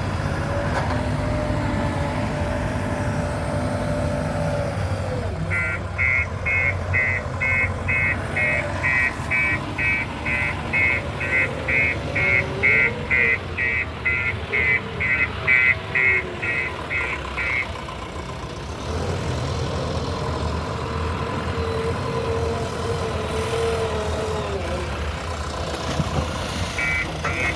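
JCB 3DX Plus backhoe loader's diesel engine running and revving as the machine works, with its reversing alarm beeping steadily, about two and a half beeps a second, for about twelve seconds from around five seconds in, and starting again near the end.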